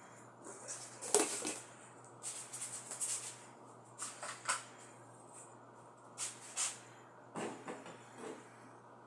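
Kitchen handling noises: a series of short, separate rustles and clatters, about five or six of them, over a faint steady hum.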